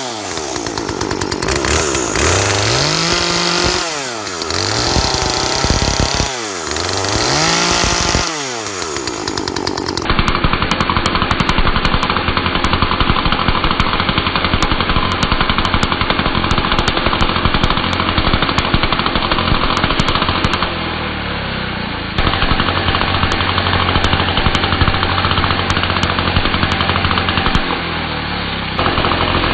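Chainsaw revving up and falling back twice, then, after an abrupt change, running steadily at high speed, its note dipping briefly twice in the later part.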